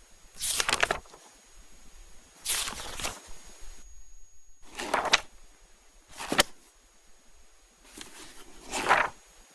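Paper book pages being turned one at a time: five quick rustling swishes, each about half a second long, with one to two seconds between them.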